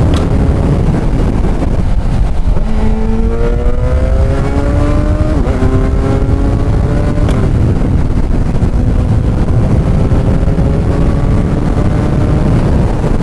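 Kawasaki Ninja 1000 SX inline-four with a Black Widow bend-pipe exhaust accelerating hard. The engine note climbs, drops at an upshift about five seconds in and again about seven seconds in, then keeps rising slowly. Heavy wind rush on the rider's microphone lies under it throughout.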